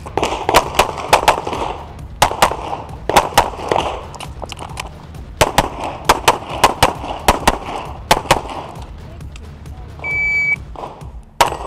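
Rapid pistol fire on a practical shooting stage: strings of quick shots, often in close pairs, with short breaks between strings as the shooter moves. Near the end a shot timer gives one high steady start beep of about half a second, and a single shot follows shortly after.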